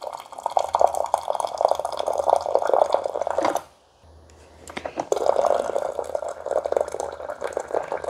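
Thin stream of hot water from the Cuisinart Coffee Plus hot-water dispenser splashing into a ceramic mug, with a low hum beneath it. The pour stops a little after three seconds in and starts again about a second later.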